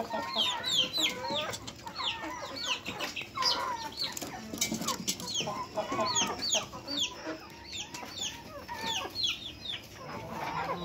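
A flock of young Kadaknath and Gramapriya chickens calling: clucking and many short, high peeps that fall in pitch, overlapping one another.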